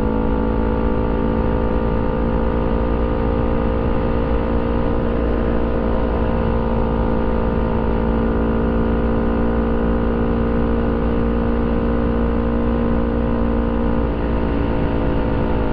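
Motorcycle engine running at a steady cruising speed, its hum holding one pitch throughout, over a heavy low rumble of wind on the microphone.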